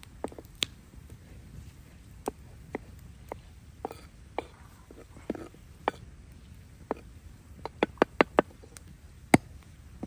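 Large knife chopping tomatoes on a wooden log-round board: scattered sharp knocks of the blade on the wood, a quick run of about five chops near the end, then one harder knock as the knife is driven into the wood.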